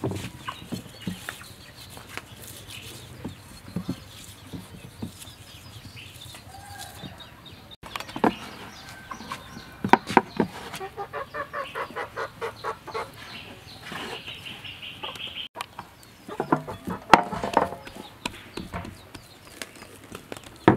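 Domestic chickens clucking in quick runs of short calls, over scattered knocks and scrapes of dough and a glass bowl being handled.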